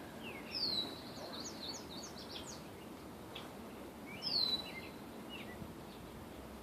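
Birds calling: two high whistled calls about four seconds apart, each sliding down and then holding steady, each followed by a quick run of short chirps, over steady outdoor background noise.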